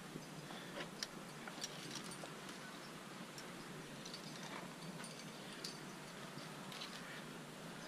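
Faint, scattered light clicks and scuffs of a climber moving up a rock chimney: metal climbing gear on the harness clinking now and then and hands brushing the rock, over a steady faint hiss.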